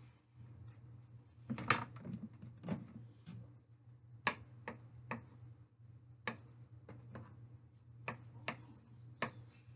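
Kitchen knife cutting food and knocking against a cutting board in a dozen irregular, sharp taps, over a steady low hum.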